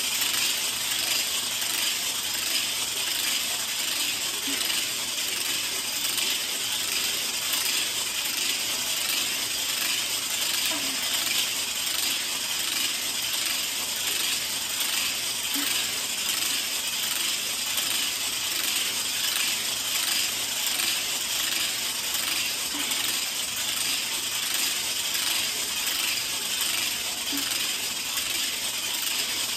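Segmented weighted hula hoop spinning around the waist, its weighted ball running round the track with a fast, steady rattling.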